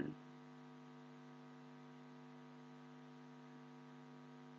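Faint, steady electrical hum made of several constant low tones, with nothing else over it.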